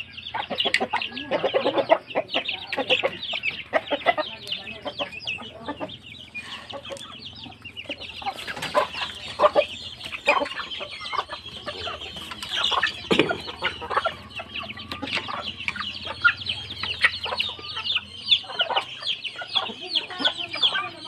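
A flock of chickens with many small chicks, clucking and cheeping: a continuous stream of short, overlapping calls.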